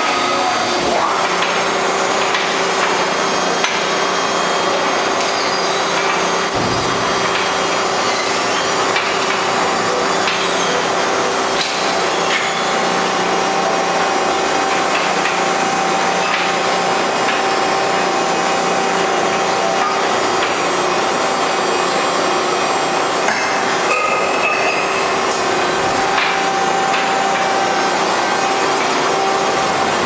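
Selco 2R1275 two-ram baler running: a loud, steady mechanical din from its hydraulic power unit and conveyor, with a steady hum and scattered knocks and rattles.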